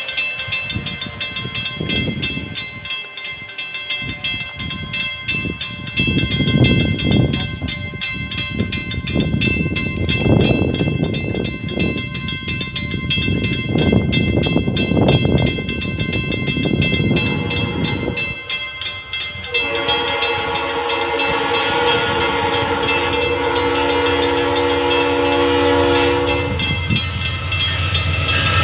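Level-crossing warning bell dinging fast and steadily, with low rumbling that comes and goes, as a diesel passenger locomotive approaches. About two-thirds through, the locomotive's multi-tone horn sounds one long chord for about seven seconds, and near the end the locomotive arrives at the crossing, louder.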